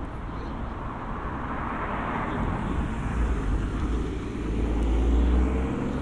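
Motor traffic in a city street: a car passes with a swell of tyre noise that peaks about two seconds in and fades, then another vehicle's engine drones with a rising pitch near the end.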